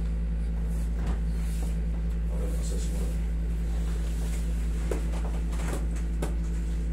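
Steady low hum of a window-type air conditioner, with a few light knocks.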